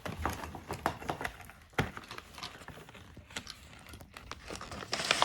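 Irregular light clicks and taps of a plastic toy figure and its packaging being handled, with a short rustle near the end.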